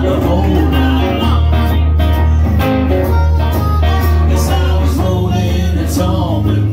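Live blues on acoustic and electric guitar with an amplified harmonica playing over them, at a steady loud level.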